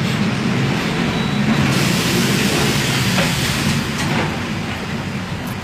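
Mercedes-Benz OF-1721 Bluetec 5 bus's diesel engine running with a steady low hum, joined about two seconds in by a loud rushing hiss that fades again toward the end.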